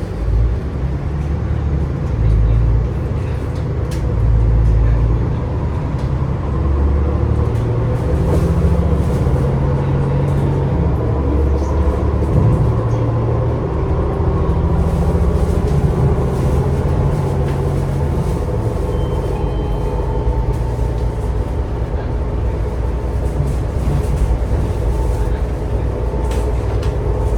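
MAN ND323F double-decker bus heard on board while driving: the engine's low drone swelling and easing as it pulls, under a steady whine from the hub-reduction rear axle gears.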